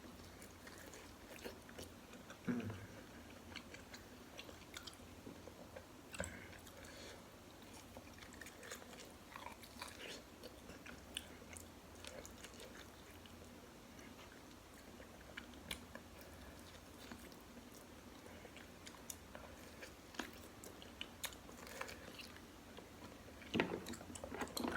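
A person eating beef rib from a bowl of bakso close to the microphone, chewing and biting with faint, scattered mouth smacks and clicks.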